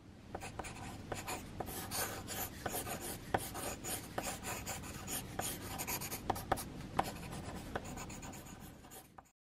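Pencil scratching on paper in quick sketching strokes, with frequent small ticks as the point strikes the sheet. It stops abruptly near the end.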